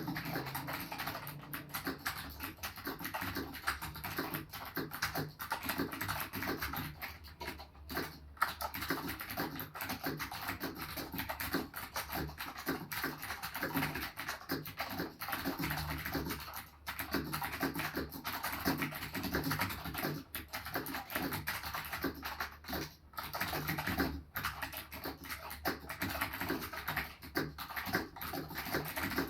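Chicony KB-5162 keyboard with blue Alps switches being typed on steadily: a fast, dense run of clicky keystrokes, broken by a few short pauses.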